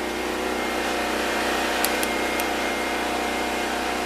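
Predator 6500-watt non-inverter generator engine running steadily. A few light clicks come about two seconds in.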